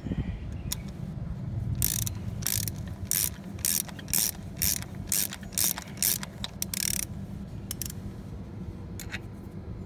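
Ratchet wrench clicking in quick strokes as it backs off the nut on a homemade threaded-rod piston pin puller, once the stuck pin has come out. About a dozen short bursts of clicking, roughly two a second, between about two and seven seconds in.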